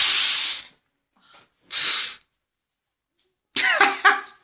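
A man breathing out hard in pain during hot-wax hair removal: a long hissing breath at the start, a shorter one about two seconds in, then a short strained groan near the end.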